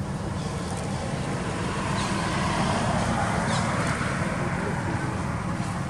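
A motor vehicle passing by: a steady low rumble, with engine and road noise swelling about two seconds in and easing off near the end.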